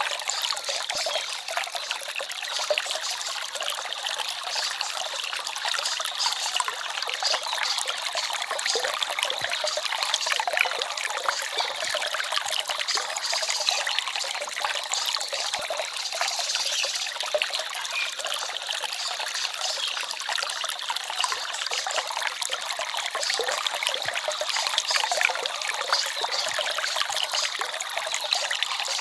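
Small forest stream trickling steadily, a continuous bright rush of water full of small splashes and with little low rumble.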